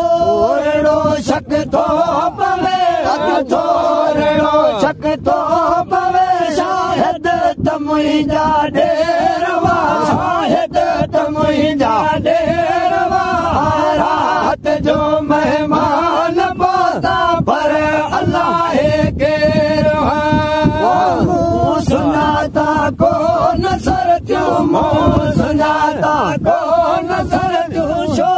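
Male voices chanting a Sindhi molud, a devotional song in praise of the Prophet: a lead melody that bends and ornaments over a steady held drone underneath.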